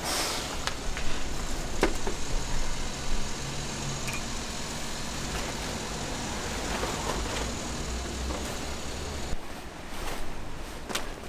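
Heavy canvas cover rustling and flapping as it is unhooked from the stall and folded by hand, with a few sharp clicks. A low, steady outdoor rumble sits underneath.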